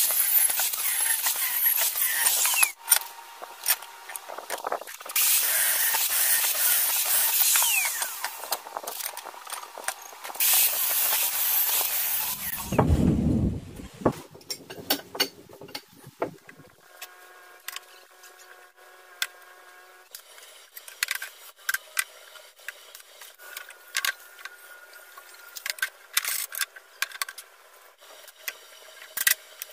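Angle grinder with a cut-off disc cutting square steel tube, in three long passes, each a loud hiss, over the first half. After that comes a quieter stretch of scattered light clicks and knocks as the steel pieces are handled.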